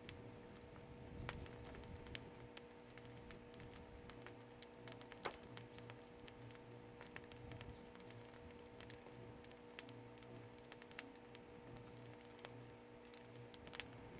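Firewood crackling faintly in an agungi, a traditional Korean wood-fired furnace: scattered sharp pops and ticks, a few louder than the rest, over a faint steady hum.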